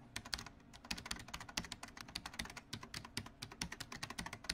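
Typing sound effect: a rapid, uneven run of keystroke clicks, many per second.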